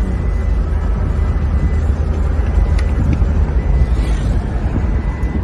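Toyota Fortuner's engine running steadily with a deep low rumble and a faint steady high whine, with a couple of light clicks about three seconds in.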